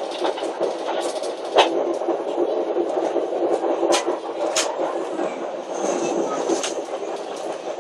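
ADL class diesel multiple unit running along the track, heard from inside the driver's cab: a steady rumble of engine and wheels on rail, with a few sharp clicks, one about a second and a half in and two around four seconds in.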